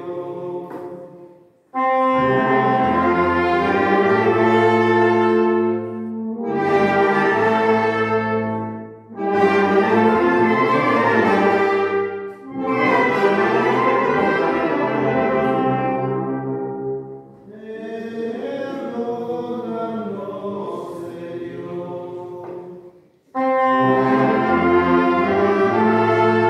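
Brass band with sousaphones and trumpets playing long held chords, phrase after phrase, with short breaks between phrases.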